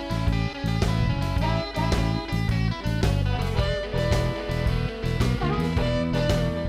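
Upbeat instrumental background music with guitar over a steady drum beat.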